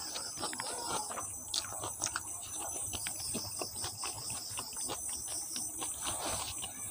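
Close-miked chewing of a big hand-fed mouthful of rice and curry, with many wet smacks and clicks of the mouth. A faint, high, rapidly pulsing chirp runs steadily underneath.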